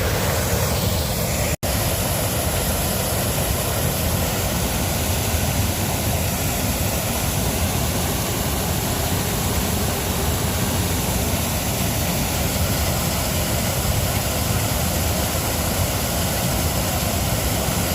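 Creek waterfall rushing steadily, running full after a day of rain. The sound drops out for a split second about a second and a half in.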